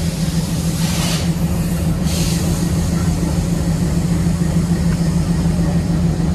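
ALCO diesel locomotive idling with a steady low hum. Two short hisses come through about one and two seconds in.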